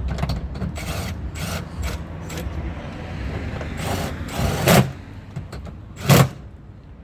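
Plastic tailgate trim panel being pressed back on, its clips giving light clicks and then two sharp snaps about a second and a half apart as they seat. A low rumble of wind on the microphone sits under the first half.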